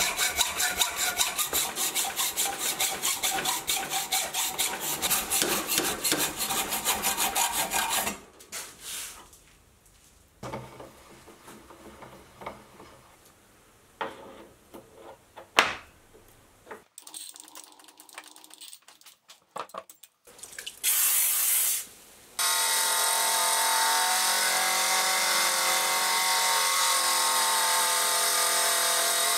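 Saw blade cutting through a hot-rolled steel bar in rapid, even strokes for about eight seconds. Then a quieter stretch of scattered knocks as the workpiece is handled. From about 22 s, a small milling machine runs steadily with a whine, its roughing end mill cutting the steel block.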